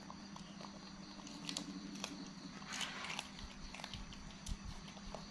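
Monkeys biting, snapping and chewing raw green bean pods, a scatter of short crisp snaps and crunches. A low steady hum runs underneath.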